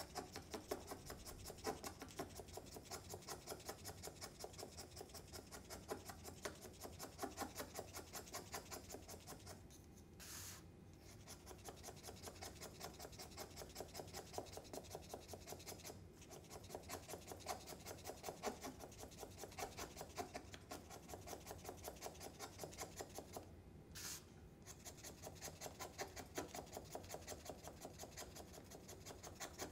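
A safety razor blade shaving the compressed-paper tip of a blending stump into a cone: faint, quick scraping strokes, about three a second, with a few short pauses.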